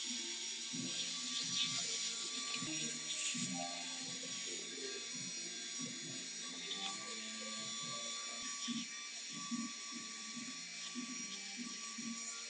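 Small DC motor running steadily in a vise while its spinning steel shaft is polished with sandpaper held against it: an even motor whine with a light scratching rub of abrasive on metal.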